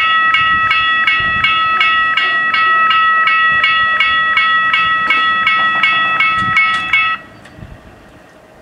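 Level-crossing warning bells ringing in rapid, even strokes, about four a second, while the barriers lower. They cut off suddenly about seven seconds in, once the barriers are nearly down.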